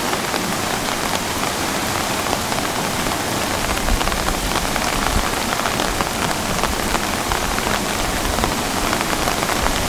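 Heavy rain falling: a steady, dense hiss full of fine pattering drops, with a low rumble joining about four seconds in.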